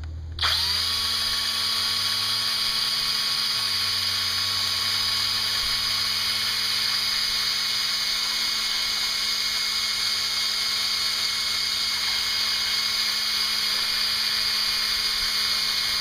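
Power drill fitted with an abrasive disc, spinning up about half a second in and then running at a steady speed as it scrubs old head-gasket material off the deck of a Honda F22B1 engine block.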